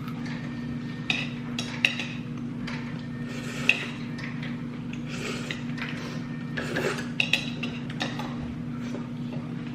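Eating sounds: chewing, with scattered sharp clinks of utensils against dishes, over a steady low hum.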